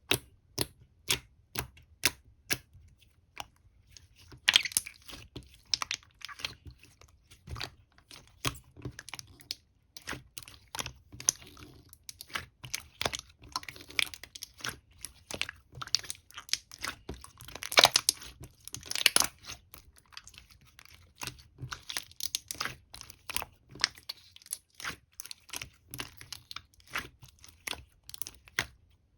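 Clear, colourless slime being poked and pressed by hand, giving a string of sharp popping clicks. They come about two a second at first, with denser crackly runs in between, the loudest about eighteen seconds in.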